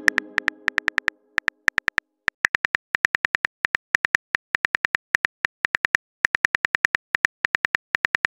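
Phone keyboard typing sound effect: rapid, uneven runs of short clicks, several a second with brief pauses, as a text message is typed out. A tone fades out during the first second.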